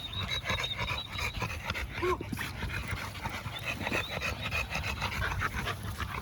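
A dog panting hard and fast after a run, in quick rough breaths.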